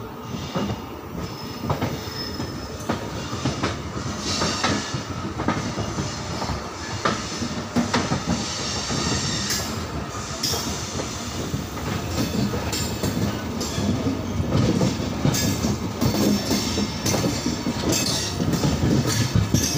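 Indian Railways express passenger train running on the track: a steady rumble of the moving coach with irregular clicks and clacks from the wheels, getting a little louder near the end.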